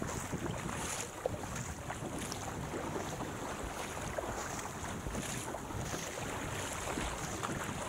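Surfski paddle strokes splashing into choppy sea, roughly one a second, over water rushing past the hull and wind buffeting the microphone.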